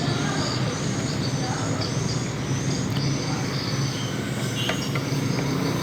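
Steady low engine rumble, with short high chirps repeating over it.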